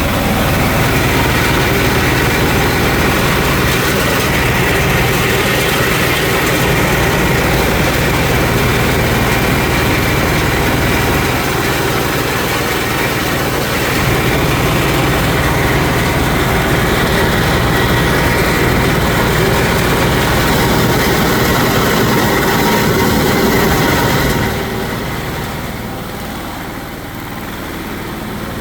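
Mini rice milling machine running steadily with a dense, even mechanical noise. About three-quarters of the way through it becomes quieter and duller.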